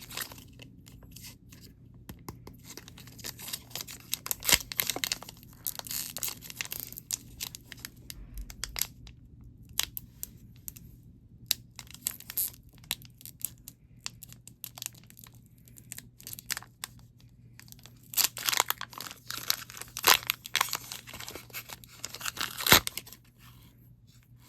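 Foil booster-pack wrapper being torn open and crinkled, in scattered bursts of crackling. The densest bursts come about four seconds in and again from about eighteen seconds on.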